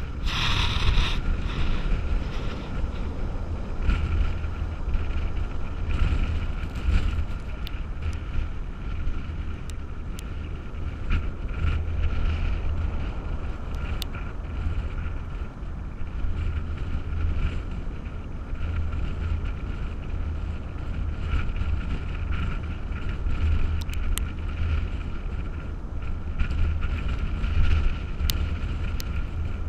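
Storm wind buffeting the microphone in a deep rumble that swells and fades, over the steady hiss of heavy surf, with scattered small ticks. A brief rustle of handling comes as the camera is set down at the start.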